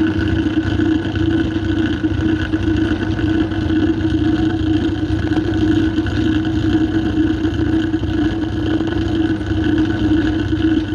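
Keen lathe running, driving a gear hob that cuts teeth into a large gear blank: a steady mechanical hum that holds an even level throughout.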